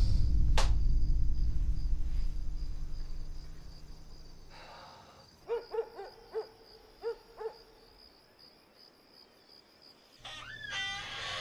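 An owl hooting six times in quick succession, over a low rumbling drone that fades away during the first few seconds. A noisier sound with a falling cry starts near the end.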